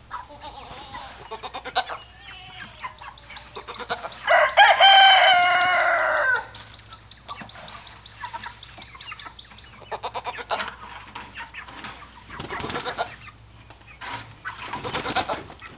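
A rooster crows once, a single call of about two seconds that starts about four seconds in and drops at its end. Chickens cluck around it, with several short bursts of noise later on.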